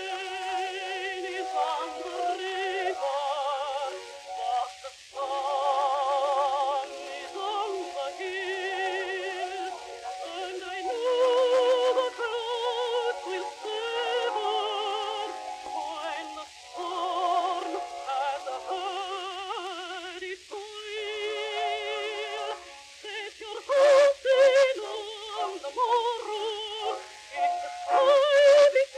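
A worn 78 rpm record of a contralto singing an Edwardian ballad with a wide vibrato. The sound is thin with no bass, over steady surface hiss, and a few loud clicks come near the end.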